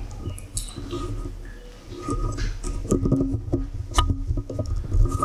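Handling noise from a handheld camera being moved about: low rumbling and shuffling with scattered light knocks, and one sharp click about four seconds in.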